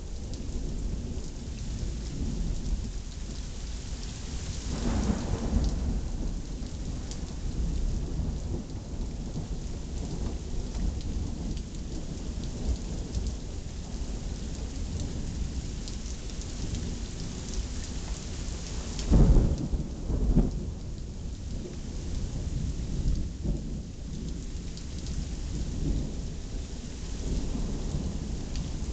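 Thunderstorm: steady rain hissing throughout, with several rumbles of thunder. The loudest rumble comes about two-thirds of the way through and is quickly followed by a second; a smaller one comes about five seconds in.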